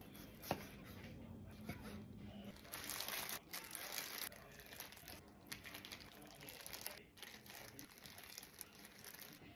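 Disposable plastic food-prep gloves crinkling and rustling as hands handle and arrange sliced boiled pork, in faint irregular bursts that are loudest about three to four seconds in. A single light knock comes about half a second in.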